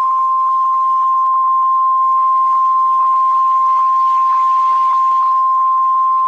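NOAA Weather Radio warning alarm tone: a single steady 1050 Hz tone, held for about six seconds, signalling that a warning broadcast follows. Faint crackly radio static lies under it.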